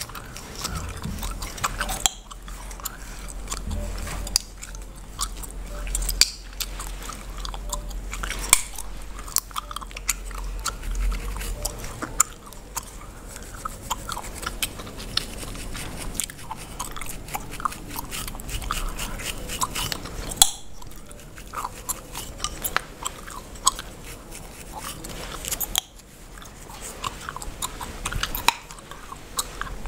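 Bubblegum chewed and cracked close to the microphone: wet chewing with sharp snapping pops at irregular intervals. Underneath, a plastic comb tip scratches and parts the hair on the scalp.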